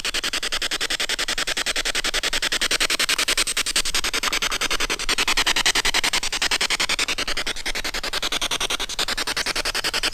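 Spirit box radio scanner sweeping rapidly through stations, heard through its small handheld speaker: a fast, even chopping of radio static, about ten pulses a second.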